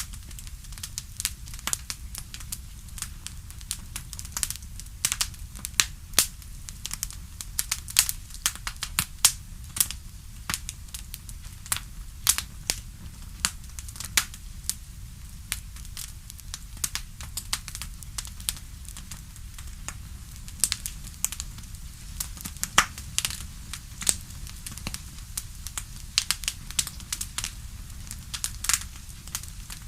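Campfire crackling: irregular sharp pops and snaps, several a second, over a steady low rumble of flames.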